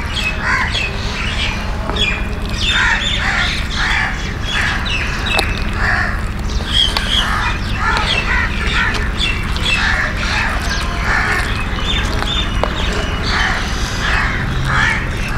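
Many birds squawking and chirping without pause, short calls following one another over a steady low hum.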